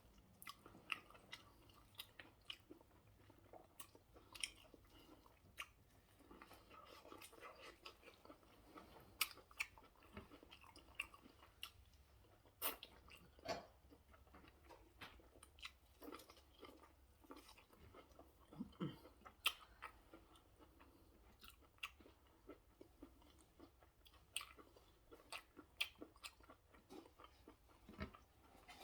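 A person chewing and biting food close to the microphone, with many irregular short clicks of the mouth and teeth.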